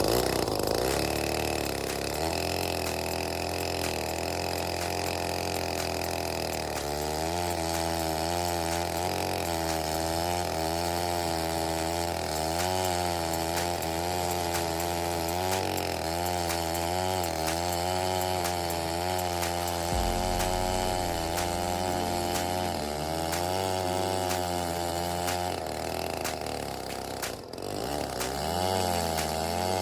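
105cc Neotec 8105 two-stroke chainsaw running under load on an Alaskan mill, ripping a slab from a marri log. The engine pitch wavers steadily as it cuts, sags briefly near the end and climbs again.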